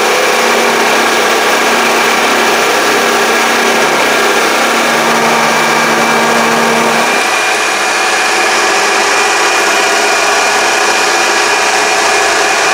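Mini lathe running with its automatic feed engaged, a loud steady motor-and-gear whine with a noisy hiss; the lower hum changes about seven seconds in.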